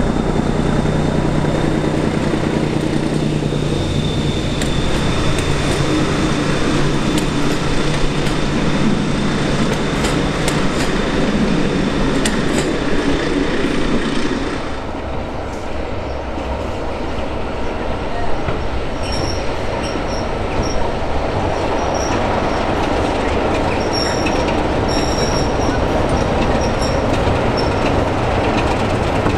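A Class 14 diesel-hydraulic locomotive hauling coaches works past with a steady engine note and a thin high whine, fading as it goes by. About halfway through, the sound changes abruptly to a Class 33 diesel locomotive running into a station with its train: a steady rumble, with short high-pitched squeals repeating over its last ten seconds.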